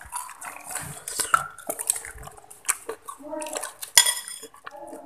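A kitchen knife slicing peeled bananas over a metal pot, with clicks and clinks as the blade and slices meet the pot. The loudest is a sharp metallic clink about four seconds in.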